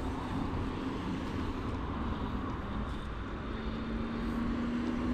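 Outdoor background rush with a distant engine's steady low hum, which grows clearer toward the end.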